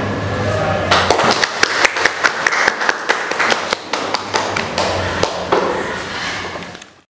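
Scattered applause from a small audience, a few people clapping irregularly, starting about a second in and fading out near the end, over a steady low room hum.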